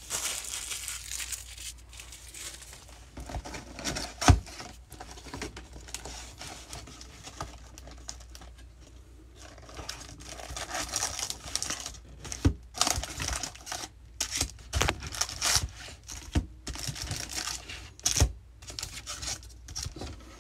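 Crinkling plastic and cardboard handling as a baseball card hobby box is opened and its foil-wrapped card packs are pulled out and stacked on a table, with irregular rustling and a few sharp knocks.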